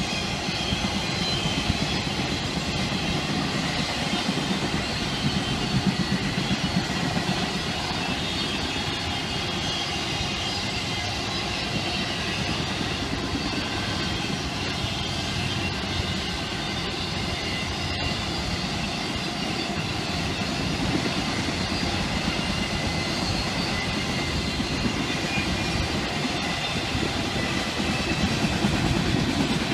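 Autorack freight cars rolling past at steady speed: the continuous rumble of steel wheels on rail, getting a little louder near the end.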